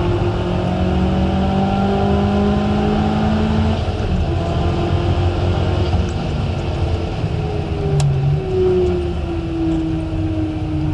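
Mitsubishi Colt Ralliart's turbocharged 1.5-litre four-cylinder engine pulling hard on track, heard from inside the cabin over loud tyre and road noise. Its note holds steady for the first few seconds, then falls in pitch over the last few as the car slows for a corner, with a single sharp click about eight seconds in.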